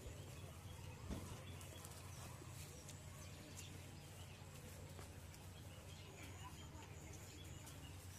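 Faint pondside ambience: scattered small bird chirps over a steady low rumble, with a single brief knock about a second in.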